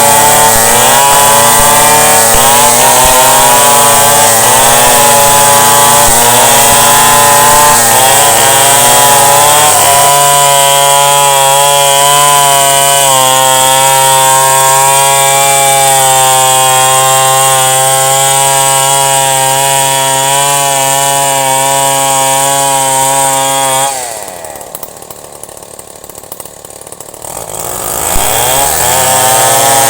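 Chainsaw engine running at high speed. Its pitch wavers up and down for about the first ten seconds, then holds steady. Near the end it drops off, lower and much quieter, for about three seconds, then revs back up.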